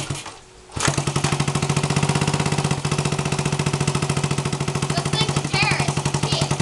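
The single-cylinder four-stroke engine of a long-stored 1975 Honda CB125S motorcycle running, brought back to life after 33 years sitting. It stumbles and drops out briefly, then catches again about a second in and runs steadily with a fast, even firing beat.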